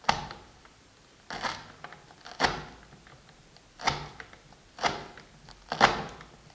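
A chopping blade cutting fresh coriander leaves against a plastic chopping board: a sharp chop about once a second, six or so in all.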